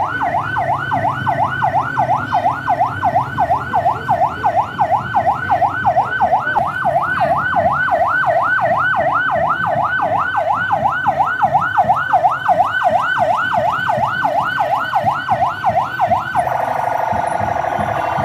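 Electronic siren on a fast yelp, sweeping up and down about three times a second, then switching near the end to a quicker, tighter warble. A low rumble runs under it in the first few seconds.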